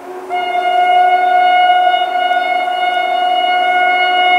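Railway horn of an approaching train: after a short gap, a long, steady, loud blast of several tones starts a moment in and holds.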